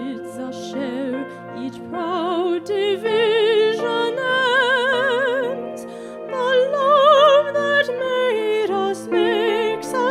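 Sacred music: a solo voice singing in phrases with wide vibrato over steady sustained accompaniment.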